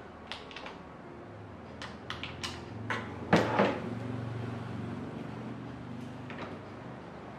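Plastic and metal parts of an office chair clicking and knocking as they are handled and fitted together, with the loudest knock, a quick double clunk, a little over three seconds in. A faint low hum runs under the middle of it.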